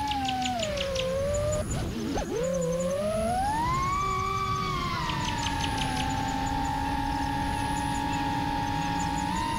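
FPV quadcopter's motors whining with the pitch following the throttle: falling, a brief dip about two seconds in, then climbing to a peak and settling into a steady whine.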